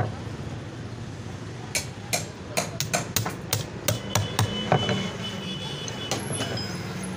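Hand hammer striking a steel punch held upright on a book to make binding holes: a dozen or so sharp knocks in quick, irregular succession, falling quiet near the end.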